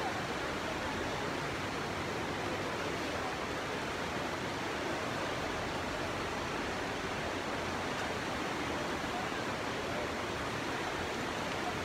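Steady, even rushing hiss of water: floodwater running fast through a street, with rain falling.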